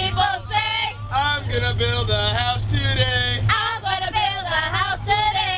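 A song with a singing voice over a steady low bass.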